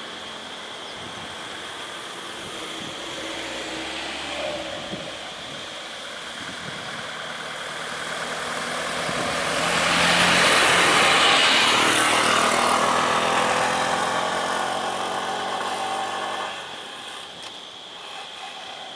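Motor vehicle engines running on a road, idling and moving slowly, with one vehicle passing close that swells loudest around the middle and then fades.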